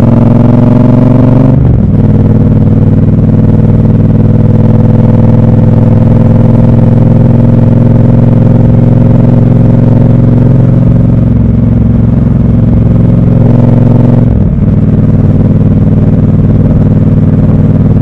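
Triumph Scrambler 1200 XC's parallel-twin engine under way: revs climb and break off at a gear change about a second and a half in, then it runs at steady revs, with another short break in the engine note a few seconds before the end.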